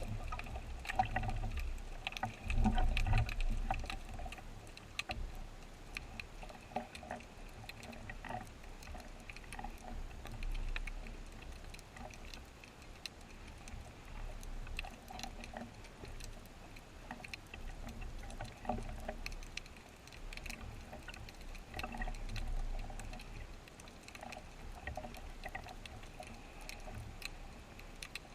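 Underwater ambience: scattered sharp clicks and crackling throughout, with low thumps in the first few seconds and again about two-thirds of the way in.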